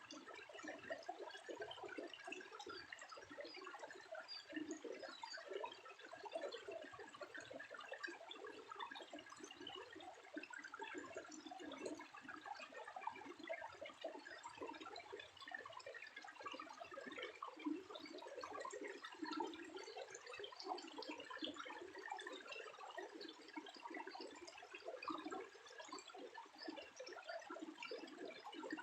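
Faint, steady sound of moving water, a dense trickling and splashing.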